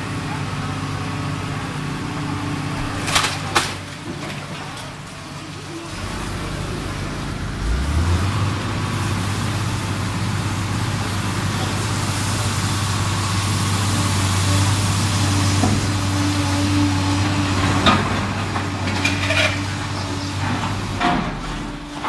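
Hydraulic excavator's diesel engine running, revving up under load about a third of the way in and holding high. Sharp cracks and crashes of timber and masonry come as the bucket tears into the building: two early on and a loud one near the end, followed by clattering rubble.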